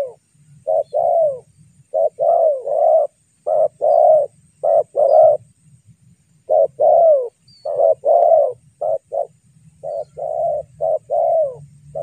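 Spotted doves cooing: repeated phrases of two or three low coos, each note bending down in pitch at its end, with short pauses between phrases.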